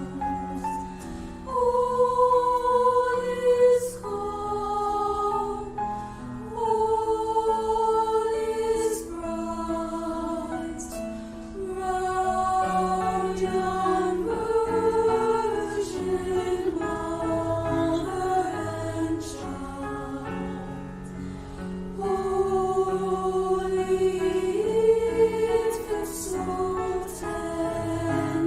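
A choir singing in several parts, holding long sustained notes that change pitch in steps.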